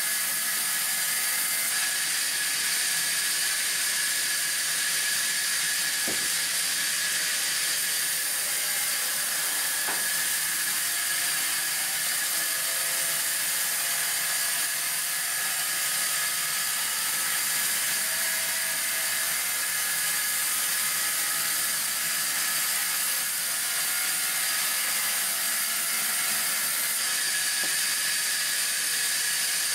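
Vertical band sawmill running and sawing lengthwise through a timber log: a steady, high hiss.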